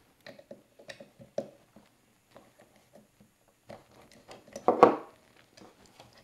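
Small metal clicks and taps of an Allen key and steel screws being handled while the side bracket of a 3018 CNC router is unscrewed, with a louder clatter about five seconds in.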